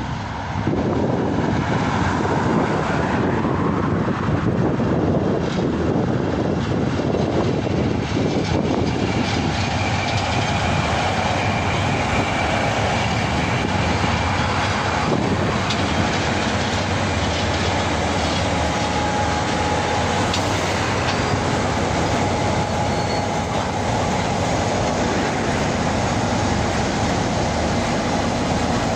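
Three KiwiRail diesel-electric locomotives heading a freight train pass close by, their engines running under load over the steady rumble of wheels on rail. A steady whine sits under it from about ten seconds in.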